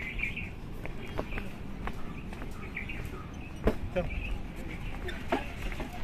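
Birds chirping in the trees, with scattered irregular footsteps and knocks on the wooden planks of a suspension bridge.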